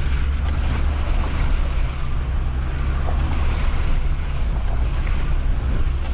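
Cab noise of a Land Rover Discovery 2 TD5 driving slowly over a wet, rutted mud track: the five-cylinder turbodiesel drones steadily under a rushing noise of tyres on wet ground, with a few light knocks from the cab.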